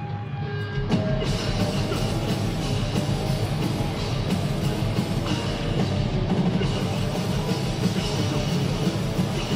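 A loud live rock band playing with drum kit, guitars and bass. A thinner passage with a few held notes gives way to the full band crashing in about a second in, then the band plays on densely.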